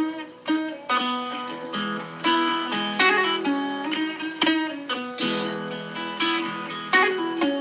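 Improvised dobro guitar playing solo: plucked notes and short runs, each ringing out.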